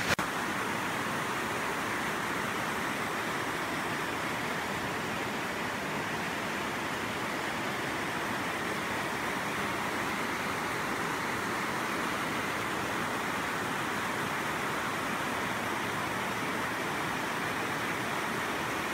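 Mountain river rushing over boulders and small rapids: a steady, even roar of water with no change throughout.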